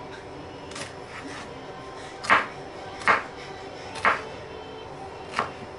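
Chef's knife dicing a green bell pepper on a wooden cutting board: five or six crisp knocks of the blade against the board at an uneven pace, faint about a second in, loudest a little past two seconds.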